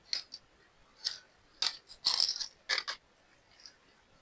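Small plastic packets of nail charms being handled: a handful of short clicks and light rattles at irregular spacing.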